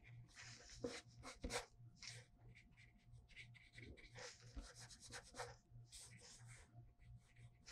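Faint brush-pen strokes and rubbing on drawing paper: short, irregular scratches and swishes as ink and water are worked into the drawing.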